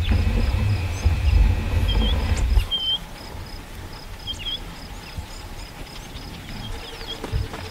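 African bush elephant giving a deep, low rumble that stops about two and a half seconds in. Small birds chirp now and then over a steady pulsing insect trill.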